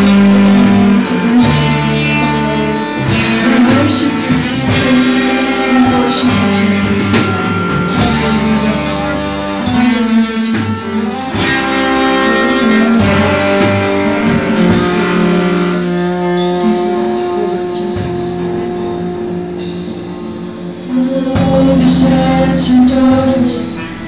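Live amateur worship band playing an instrumental passage on electric guitars with cymbals. The band drops quieter about two-thirds of the way through, then comes back in at full volume near the end.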